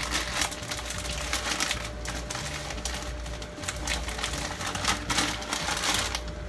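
Dry fettuccine strands clicking and rattling against each other and the rim of a stainless-steel pot as they are spread out by hand, a dense run of quick, irregular ticks.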